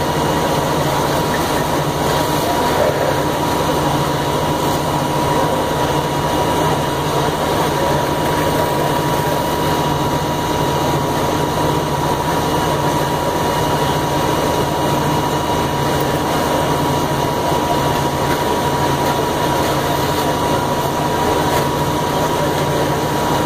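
Fire engine's diesel engine running its pump to supply hose lines: a loud, steady engine drone with a constant high tone over it.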